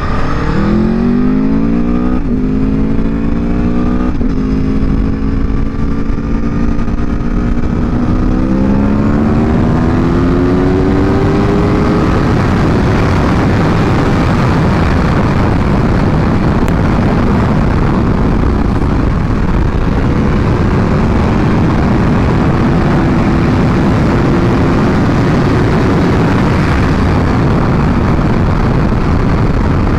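Aprilia Tuono V4 Factory's V4 engine pulling hard under acceleration. Its pitch climbs and drops at two quick upshifts in the first few seconds, then climbs again around ten seconds in. After that the bike holds a steady speed and wind rush largely covers the engine.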